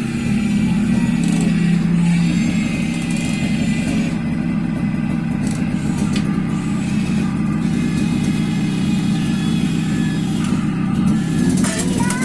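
Toy radio-controlled excavator's small electric motors and plastic gearing whirring steadily as it drives.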